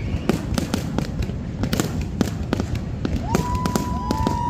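Fireworks going off in rapid succession: many sharp bangs and crackles a second over a continuous low rumble. Near the end, a long, steady high whistling tone joins in.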